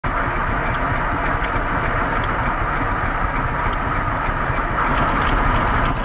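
Large antique belt-driven circular saw bench and its drive running, a steady mechanical noise with a low rumble underneath.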